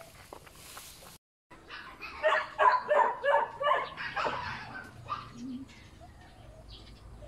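A newborn puppy crying in a quick run of short, high-pitched yelps, about three a second, tailing off into fainter whimpers.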